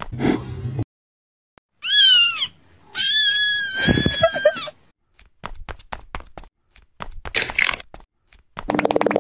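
Cat meowing twice: a short call about two seconds in, then a longer, drawn-out one about a second later, with scattered clicks after. Near the end a steady buzzing rattle starts.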